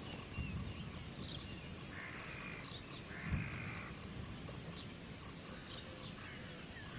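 European field cricket singing: a high, unbroken song, with a short low bump a little over three seconds in.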